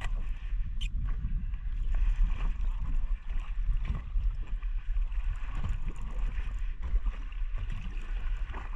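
Wind rumbling across the microphone and sea water slapping and gurgling against a small boat's hull, in an uneven wash with no steady rhythm.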